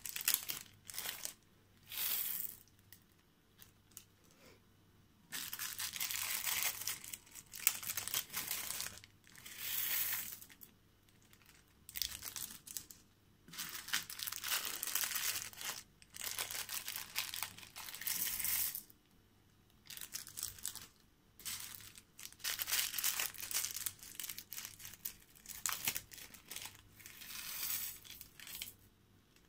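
Small plastic zip-lock bags crinkling and rustling as they are opened and emptied by hand, in repeated spells of a second or three with short pauses between.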